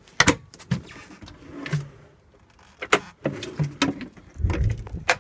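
Boat storage-hatch lids and their metal flush-pull latches being handled, opened and shut: a series of sharp clicks and knocks, with a low rumble near the end.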